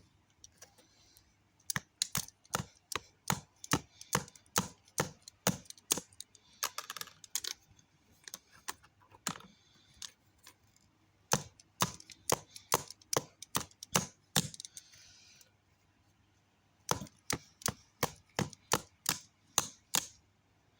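Plastic buttons on a TV remote control being clicked, sharp single clicks in irregular runs of two or three a second, with a couple of short pauses.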